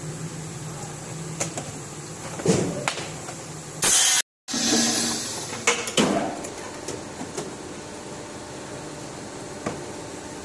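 Blow molding machine running with a steady low hum and scattered clicks and knocks. About four seconds in comes a loud burst of hissing, broken by a moment of silence, which then resumes and dies away over the next two seconds.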